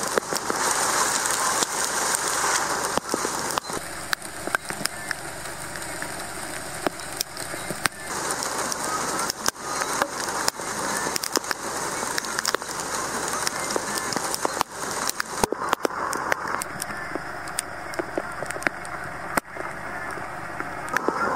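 Storm rain falling steadily as a dense hiss, with frequent sharp ticks of drops striking close to the microphone.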